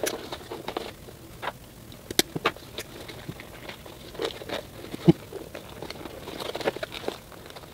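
Irregular plastic clicks, taps and rustling as a GoPro camera in its clear housing is worked free of its plastic packaging mount. The sharpest clicks come about two seconds and five seconds in.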